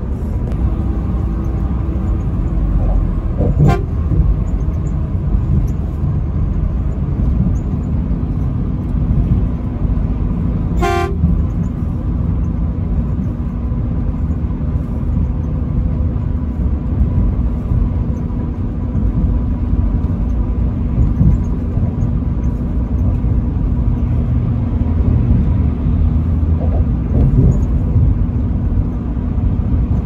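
Semi-truck running at highway speed, heard from the cab as a steady engine and tyre rumble. A truck horn gives two short toots, a faint one about four seconds in and a louder one about eleven seconds in.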